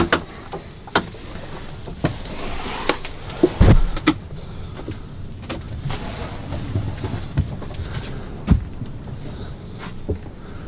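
Scattered knocks and clatter, with one heavier thump about three and a half seconds in.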